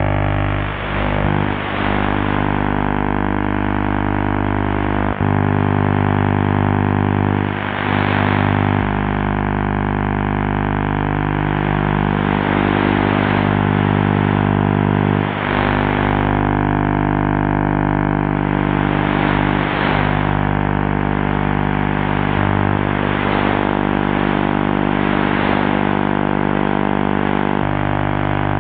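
Buzzing drone of a distant channel E4 TV station's vision carrier demodulated as sound, picked up by trans-equatorial propagation: a dense, steady buzz whose tone shifts abruptly a few times as the picture content changes, with noise swelling up every few seconds.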